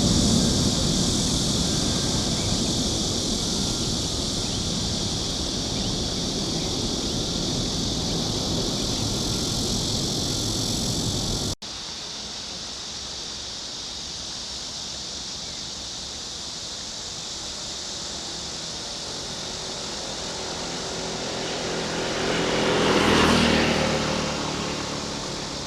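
A jet airliner's engine noise slowly fading away. After an abrupt cut about halfway through, quieter outdoor background follows, with a vehicle passing close near the end in a brief swell that rises and falls.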